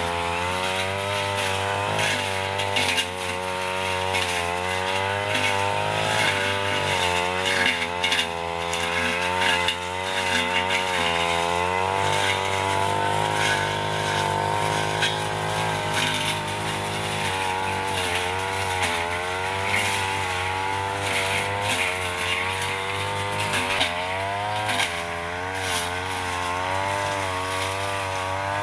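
Backpack brush cutter engine running at high speed while its blade cuts through dense undergrowth, the engine note wavering up and down as the load changes.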